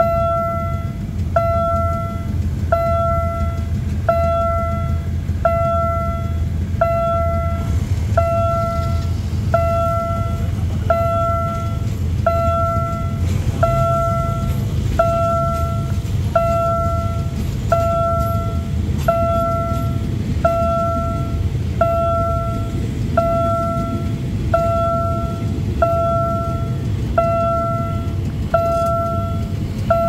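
Railway level-crossing warning bell chiming steadily, one electronic tone about every second and a half, over the low rumble of passenger train carriages rolling past the crossing.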